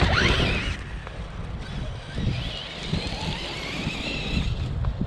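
Brushless motor of a 6S RC basher truck (Hobbywing Max6 1650kv) whining up in pitch as the truck launches, then a steady, wavering whine as it runs at speed. Wind rumbles on the microphone throughout.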